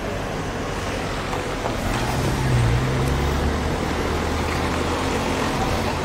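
A car passing close by with its engine hum, swelling about two seconds in and fading over the next few seconds, over steady traffic noise.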